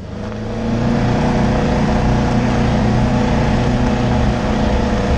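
Polaris Ranger XP1000 UTV's twin-cylinder engine running at a steady speed as the vehicle drives, heard close up from beneath the chassis.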